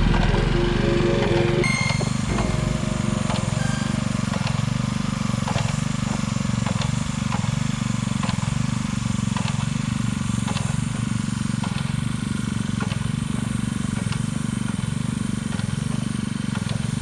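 An engine running steadily at a constant speed, with a regular light ticking a little under twice a second.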